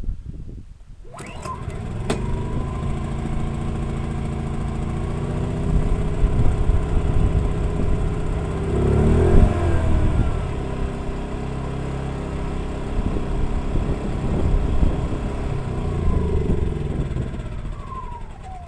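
A Predator portable generator's small gas engine catches about a second in and runs unevenly, surging in the middle with its pitch rising and falling. Near the end it winds down with falling pitch and dies: a failed start on a generator that won't keep running, which the owner wonders may be low on oil.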